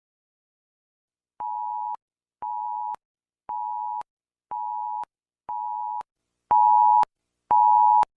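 Electronic alert beeps: seven half-second two-tone beeps about once a second, the last two much louder.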